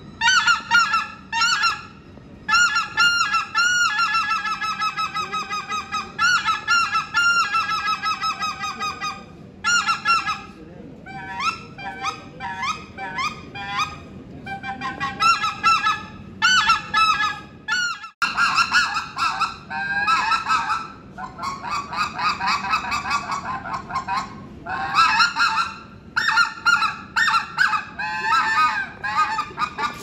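Hand-blown goose call imitating wild geese: runs of short, loud, high-pitched honks in quick strings. About eighteen seconds in there is a sudden break, after which the calling is denser and rougher.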